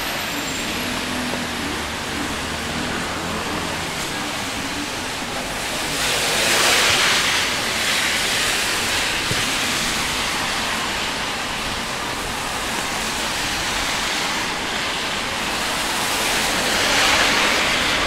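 Steady hiss of rain and traffic on a wet city street. It swells twice, about seven seconds in and near the end, as tyres swish past on the wet road.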